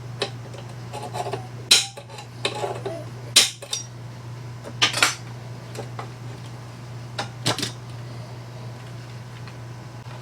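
Sharp metallic snaps and clinks, about half a dozen spread over several seconds: a spring-loaded center punch firing on the marked hole spots of a steel drawer-slide rail, with the metal parts knocking together as they are handled.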